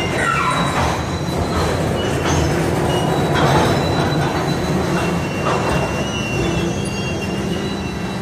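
Freight train of covered hopper cars rolling slowly past, a steady low rumble of wheels on rail with thin high wheel squeals that come and go, one sliding down in pitch about half a second in.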